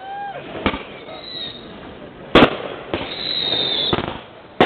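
Aerial fireworks bursting: three sharp bangs a couple of seconds apart, the loudest near the middle, with a steady hissing rush between them.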